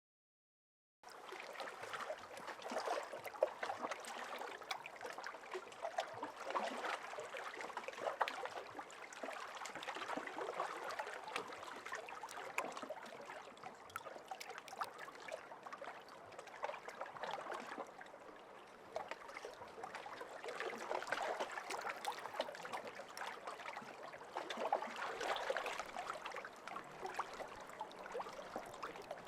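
Small lake waves lapping, a continuous wash of water that swells and eases, starting about a second in.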